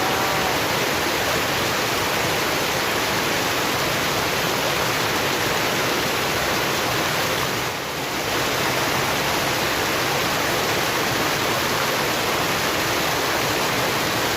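Steady rush of river water pouring over a dam weir, an even roar with a brief slight dip about eight seconds in.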